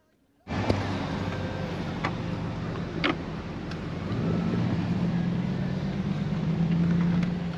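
A car driving on a gravel road, heard from inside the cabin: steady engine hum and tyre rumble that cut in suddenly about half a second in, with a few sharp knocks from the road about one, two and three seconds in.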